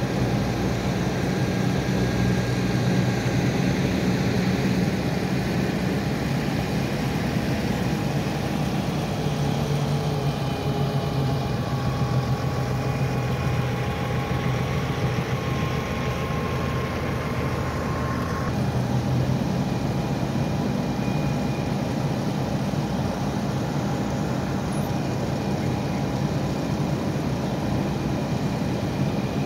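A steady low rumble of idling vehicle engines, with faint whining tones above it.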